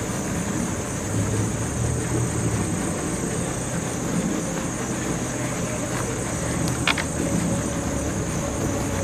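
Steady outdoor background: a low rumble with a high, even hiss running under it, and one short sharp click about seven seconds in.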